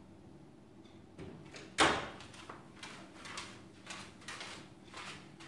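A door shuts with a sharp knock about two seconds in, followed by a run of lighter knocks and clatter from things being handled.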